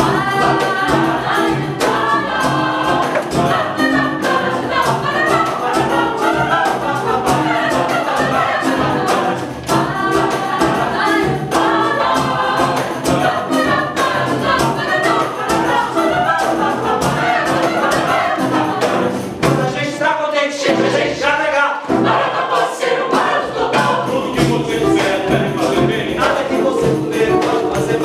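Mixed choir of women's and men's voices singing a song in several parts. The lowest notes drop away for a couple of seconds about twenty seconds in.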